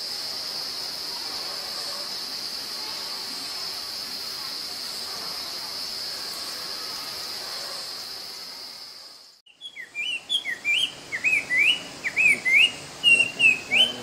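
A steady high-pitched buzz runs for about nine seconds and then cuts off. A Chinese hwamei (Garrulax canorus) then sings a fast run of loud, clear whistled notes, each sliding sharply up or down.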